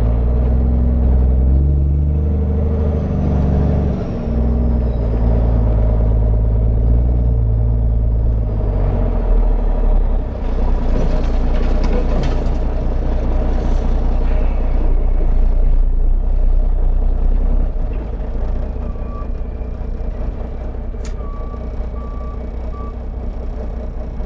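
Truck engine running in traffic, a low steady drone that eases after about nine seconds. Near the end come a few short beeps of a reversing alarm.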